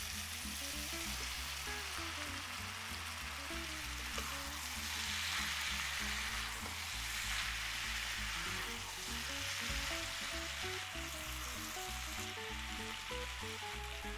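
Diced onion, pepper, tomato and zucchini sizzling in a frying pan as the raw zucchini cubes are tipped in and stirred with a spatula, the sizzle strongest in the middle. Background music with a bass line plays underneath.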